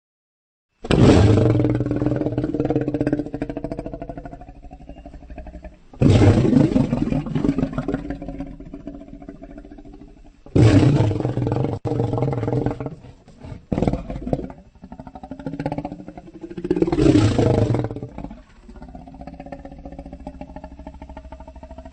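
Recorded lion roar sound effects: after a second of silence, four long roars each start loud and fade over several seconds, with a couple of short grunts between the third and fourth. A quieter, lower growl follows near the end.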